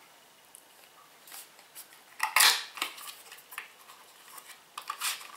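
A small cardboard cosmetics box being handled and opened by hand: scattered light clicks and rustles, with one louder rustle about two and a half seconds in.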